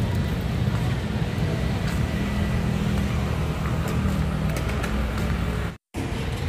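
City street traffic noise, a steady low rumble of passing road vehicles. It cuts out completely for a split second near the end.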